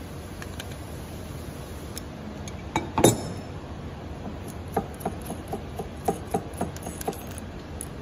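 Metal clinks of an adjustable wrench working on a new stainless push-button switch's mounting nut on the floor scrubber's control panel. One loud sharp clink about three seconds in, then a run of small ticks, about four a second.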